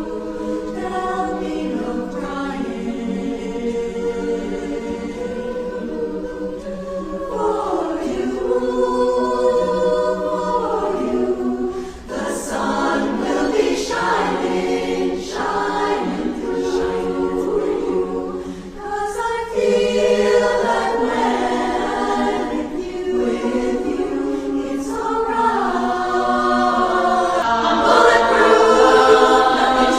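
A chorus singing unaccompanied, growing louder near the end.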